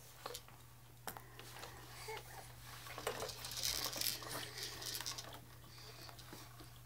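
Quiet room with scattered light taps and clicks of plastic toys on a baby's activity centre being handled, and a soft breathy rustle about halfway through, over a faint steady low hum.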